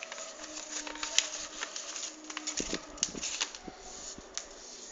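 A sheet of printer paper folded and creased by hand: irregular rustling and crinkling, with sharp crackles now and then.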